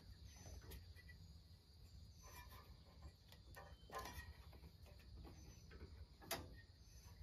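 Faint scattered clicks and light knocks of a rubber V-belt being worked by hand onto a tractor's fan and generator pulleys, the loudest knock about six seconds in.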